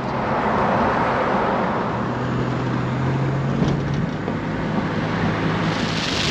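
Car driving along: a steady engine hum under continuous road noise.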